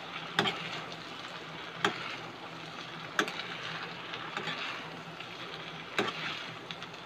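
Noodles, rice and vegetables sizzling in a non-stick wok while they are tossed and mixed with a metal spatula, with about four sharp clicks of the spatula knocking against the pan.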